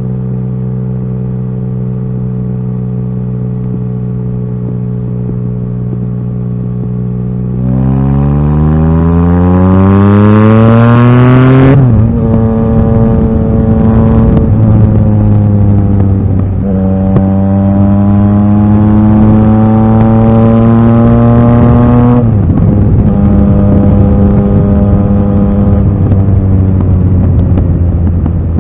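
Yamaha XSR900's inline-three engine: it runs steadily for about eight seconds, then accelerates with a rising note, drops sharply at an upshift about twelve seconds in, eases off briefly, pulls again to a second upshift a little over twenty seconds in, and settles into a steady run.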